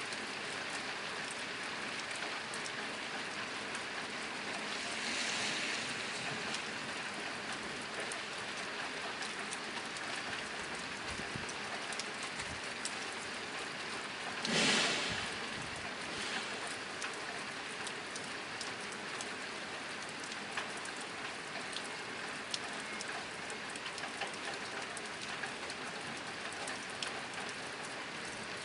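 Steady rain drumming on a tin roof, a dense patter of individual drops over an even hiss, with a brief louder rush about halfway through.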